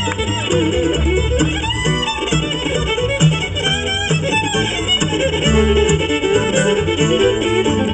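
Background music: an instrumental break in an acoustic, bluegrass-style song, with a fiddle playing over guitar and a steady bass beat.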